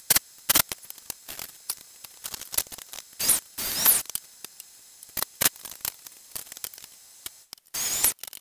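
Drill driving screws into wooden shelf boards in short bursts, the last near the end, among scattered clicks and knocks of handling the wood and the stepladder.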